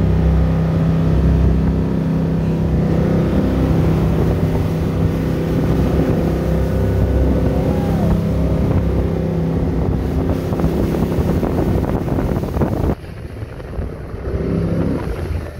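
Jet boat engine running steadily at speed, with water spray and wind rushing past. About thirteen seconds in, the sound drops abruptly to a quieter level.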